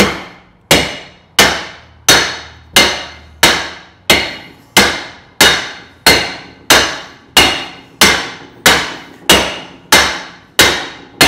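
Hammer blows on a 2012 Chevy Cruze's cast rear brake drum, struck around its rim about every two-thirds of a second, each blow ringing and fading before the next, to loosen the drum from the hub.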